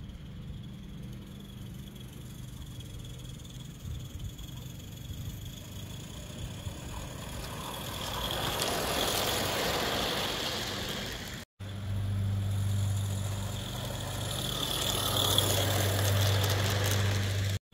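Accucraft Mabel garden-scale model train approaching and running past on outdoor track: its running noise swells to a peak about ten seconds in, then after a break swells again as the coaches pass close. A steady low engine-like hum sits underneath throughout.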